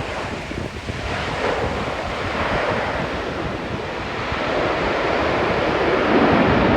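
Airbus A320 jet engines rushing, blended with heavy wind buffeting on the microphone, growing steadily louder.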